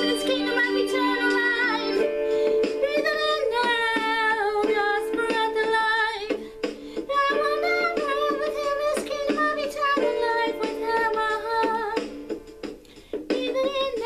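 A song with a high singing voice holding long, wavering notes over instrumental accompaniment, with two short breaks between phrases.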